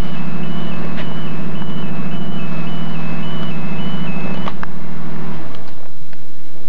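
Genie boom lift's engine running steadily while its alarm beeps, stepping between two pitches about every half second. The beeping stops about four and a half seconds in and the engine shuts off a second later, leaving a few small clicks.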